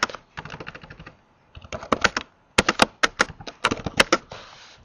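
Computer keyboard keys clicking in quick, irregular bursts as text is typed, with a short pause about a second and a half in.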